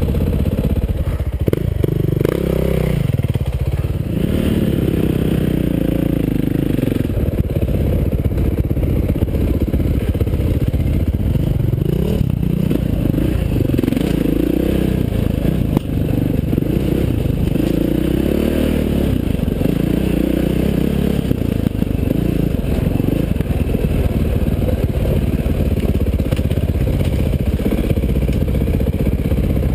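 KTM 530 XC-W dirt bike's single-cylinder four-stroke engine running under load, rising and falling in pitch as the throttle opens and closes. A single sharp knock about halfway through.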